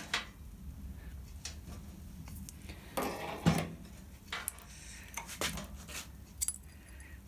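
Scattered light metallic clicks and clinks from hand tools and a wiring-loom connector being handled, with a few stronger clinks about three seconds in and again near the end.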